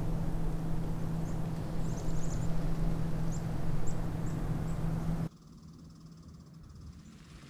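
Several short, high bird chirps over a steady low hum and rumbling noise, which cuts off abruptly about five seconds in to a much quieter background.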